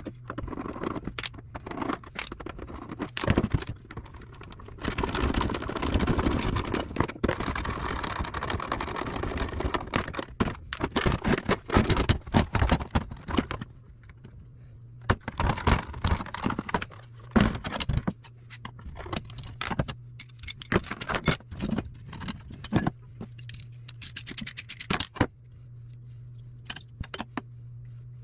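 Hand tools and small metal parts clicking, clattering and scraping as food service scales are taken apart for scrap, with a denser stretch of scraping and rattling in the first half, over a steady low hum.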